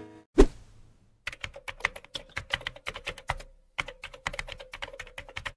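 Computer-keyboard typing sound effect: one sharp click about half a second in, then rapid key clicks in two runs, about six a second, with a short pause between them.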